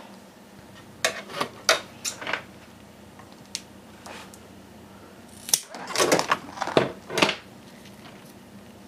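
Scissors snipping through a strip of industrial-strength Velcro to trim it to width. There are a few quick snips about a second in, then a closer run of snips a few seconds later.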